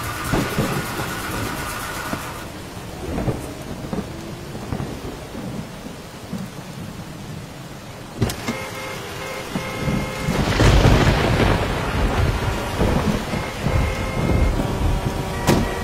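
Heavy rain falling steadily, with a sharp crack of thunder about eight seconds in and a long, loud rumble of thunder starting about halfway through, then another crack near the end.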